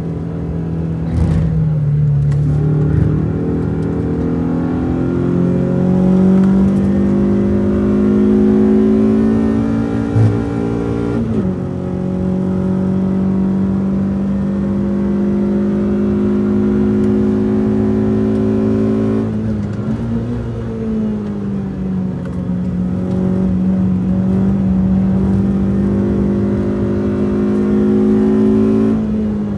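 Renault Twingo RS's four-cylinder engine heard from inside the cabin, pulling hard under load on track. The pitch climbs slowly for long stretches and drops sharply about a third and two thirds of the way through, and again at the end.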